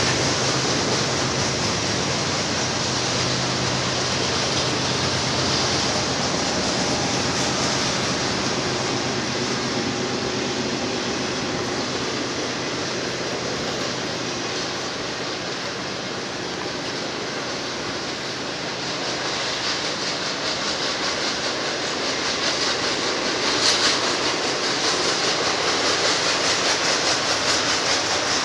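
BNSF intermodal freight train's cars rolling past, steel wheels on the rails making a steady rumble and hiss, with a faint rhythmic clacking near the end.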